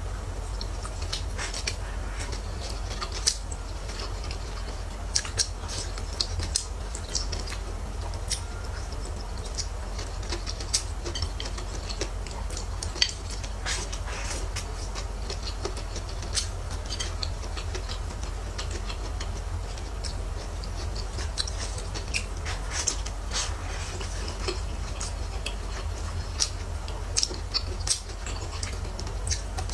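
Close-miked eating: chewing of stir-fried tofu and chili peppers as many small, irregular wet clicks and smacks, with now and then a chopstick touching the plate. A steady low hum lies underneath.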